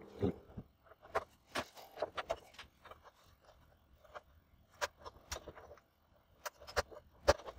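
Sped-up handling noise of hands working inside an open computer case: irregular sharp clicks, knocks and light scrapes as connectors are plugged in and a memory card is seated on the main board.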